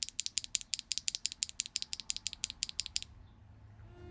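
HMX Moonlit Bleu linear keyboard switch being pressed over and over in quick, even succession, about eight sharp clacks a second. They stop about three seconds in. The clack is high-pitched, from the splash of fiberglass in its P4 bottom housing.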